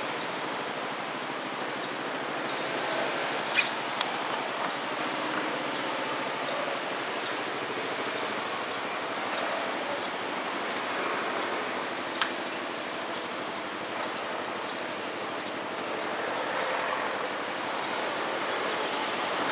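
Steady outdoor street ambience with a hum of road traffic, a few sharp clicks and faint high chirps. No train is passing.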